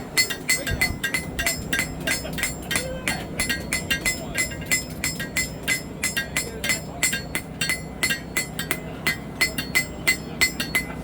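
Hand hammer striking a hot knife blade on an anvil in a steady rhythm of about three to four blows a second, each blow ringing briefly, as the blade's bent edge is worked straight. A steady low hum runs underneath.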